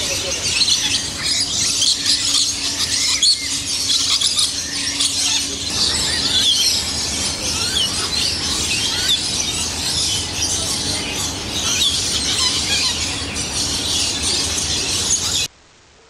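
A flock of lories giving dense, overlapping high-pitched squeals and chatter, many short calls at once. Cuts off suddenly near the end.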